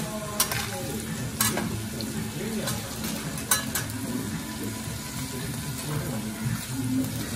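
Food sizzling on a steel teppanyaki griddle while a metal spatula and carving fork stir and scrape it, with a few sharp clicks of the utensils striking the plate in the first four seconds.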